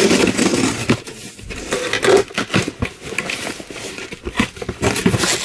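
Subscription box being opened by hand: irregular crinkling and rustling of packaging, with scattered sharp clicks and knocks as flaps and wrapping are pulled.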